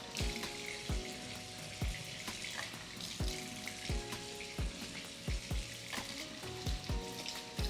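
Background music with a steady beat, over the steady hiss of a kitchen tap running as pepper seeds are rinsed out.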